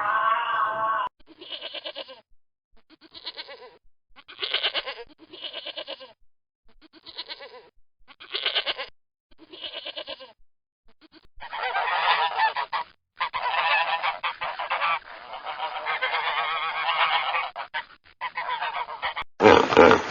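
Domestic geese honking: short single honks about once a second, then several geese honking together and overlapping for most of the second half.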